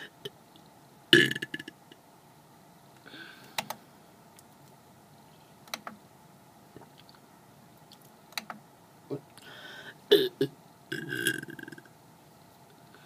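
A person belching several times: a loud belch about a second in, another around three seconds in, and two more close together near the end. A few small clicks fall in the gaps between them.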